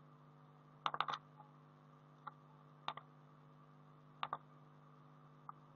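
Short, sharp computer mouse and keyboard clicks, a quick cluster of three about a second in, then single clicks spaced out, over a faint steady hum.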